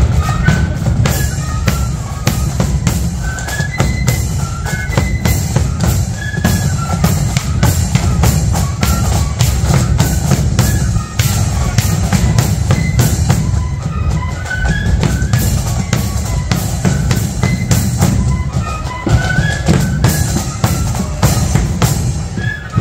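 Marching flute band playing a tune: flutes carry a melody of quick, short notes over bass drum and rapid snare drumming.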